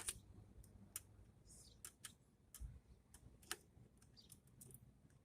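Faint, irregular clicks and light knocks of a screwdriver and small metal and plastic parts being handled while an appliance is taken apart for scrap. The sharpest click comes right at the start, with a dull knock about two and a half seconds in.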